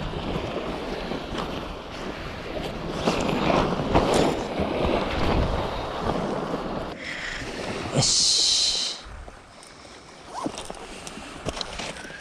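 Steady rushing noise of sea and wind by the shore, with a sharp burst of hiss about eight seconds in that lasts about a second, then quieter.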